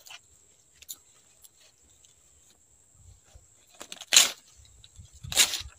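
Two short, loud ripping rustles about a second apart in the second half: banana leaves being torn by hand. Otherwise quiet apart from a few faint clicks.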